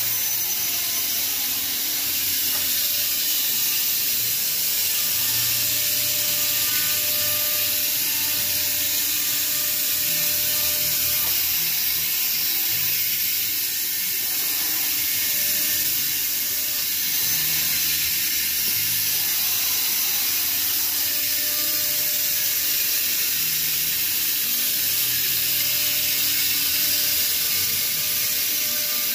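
2003 Quintax five-axis CNC router running: its axis drives hum in low tones that shift in steps as the head moves between positions, over a steady hiss.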